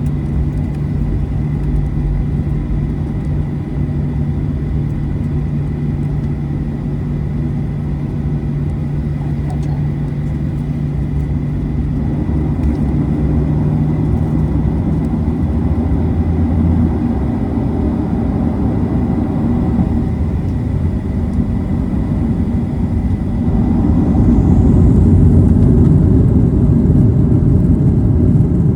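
Cabin noise inside a Boeing 737-800 with its CFM56-7B engines running: a steady rumble with a low hum that fades out about halfway, then the noise steps up louder near the end.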